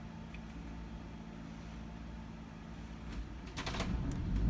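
Cummins Onan marine generator being started: a steady low hum while the start button is held, then a few clicks about three seconds in as the generator catches, with its low running rumble building toward the end.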